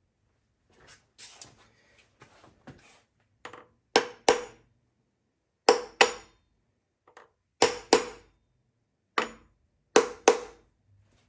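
Hammer blows on a stuck connecting-rod cap of a Chevy 350 V8, used to knock it loose: about nine sharp, ringing metal strikes, mostly in quick pairs, after a few lighter clinks and clatter.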